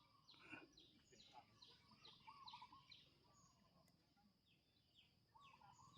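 Faint birdsong: a run of short, high, falling chirps about twice a second, with a warbling call twice.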